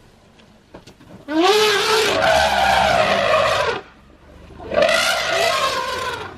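African elephant trumpeting twice while charging at wild dogs: two long, harsh blasts, the first starting about a second in and the second near the end. It is the threat call of an elephant defending its herd.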